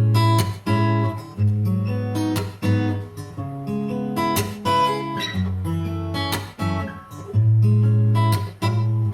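Sigma DM15 dreadnought acoustic guitar played unplugged, strumming a chord progression: sharp strokes with each chord ringing on between them.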